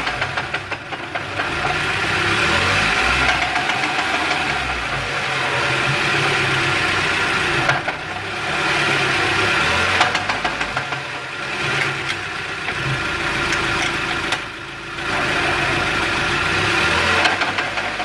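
Mazda Miata's four-cylinder engine running, with intermittent clunks from the drivetrain. The clunking started after a clutch replacement.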